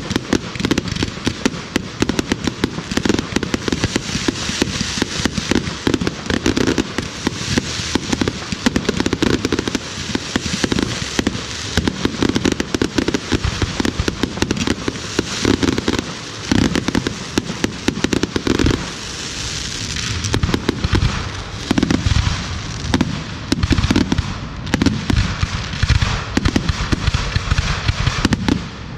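Fireworks display firing a dense, continuous barrage: deep bangs of shells bursting one on top of another, over a constant crackle, with hardly a pause.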